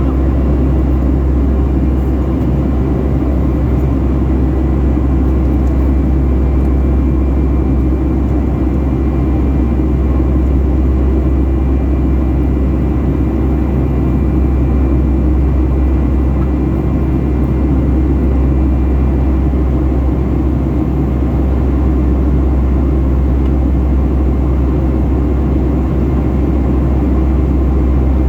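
Steady cabin noise inside a Boeing 757-300 with its turbofan engines running: a loud, even low rumble with a faint high whine, holding level throughout.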